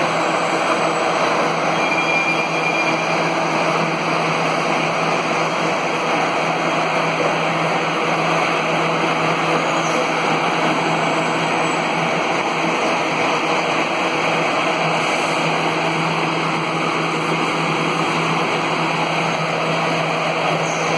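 Steady drone of running factory machinery, with a low hum held at one pitch under a constant mechanical noise.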